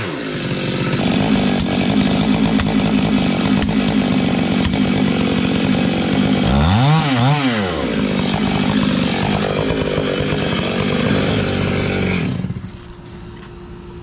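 Gas chainsaw running while cutting through the base of a tree trunk, its pitch sweeping up and back down about seven seconds in. The saw sound drops away near the end, leaving a quieter steady hum.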